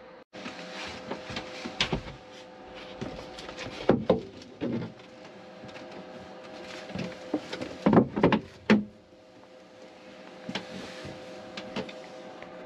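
Wooden engine-room side door being unlatched, lifted out of its opening and set down: irregular knocking and clattering of wood, with the loudest knocks about 4 s and 8 s in, over a faint steady hum.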